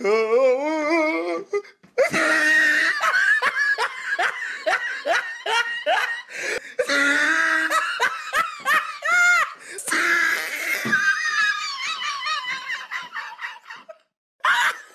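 People laughing heartily in long runs of quick bursts, opening with a drawn-out wavering voice for about two seconds and breaking off briefly near the end.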